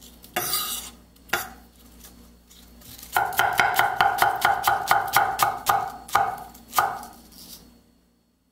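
A 52100-steel nakiri knife chopping cabbage on an end-grain wooden board. It opens with a crunching slice and a single knock, then a fast, even run of crisp chops at about four a second. The chops stop shortly before the end.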